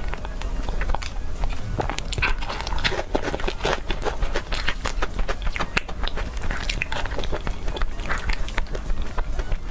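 Crunchy food being bitten and chewed, with many quick, irregular crunches over a low steady hum.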